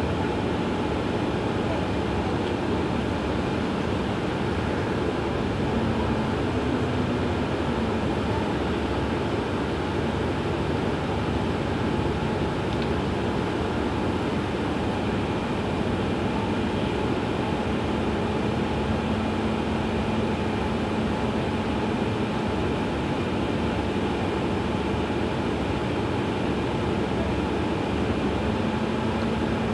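Iveco Crossway LE CNG city bus's natural-gas engine idling steadily while the bus stands stationary, a constant even running sound with a faint steady hum.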